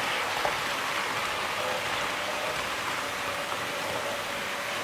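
HO scale Jouef TGV Duplex model train running on its track: a steady rushing of wheels and motor with a faint whine.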